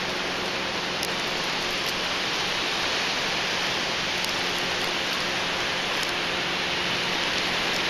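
Steady hiss of ocean surf breaking and washing up the beach.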